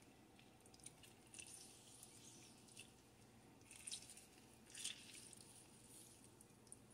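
Faint wet squelches and drips of a half lemon being squeezed by hand, in a few short bursts, the clearest about four and five seconds in.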